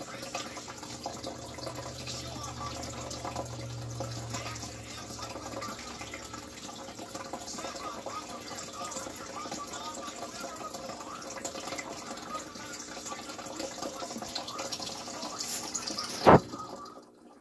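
Steady trickling and splashing of water in a small turtle tank, with a single sharp knock near the end.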